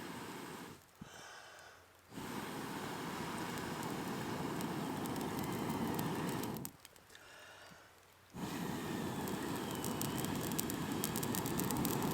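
A person blowing long, steady breaths onto glowing campfire embers to rekindle the fire: two rushing blows of about four seconds each, with a short pause to breathe in between, and faint crackling as the kindling starts to catch near the end.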